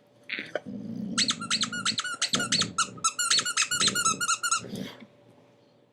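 Dog chewing a squeaky chew toy: a rapid run of short, high squeaks, about five a second, lasting a few seconds, with a low growl underneath near the start.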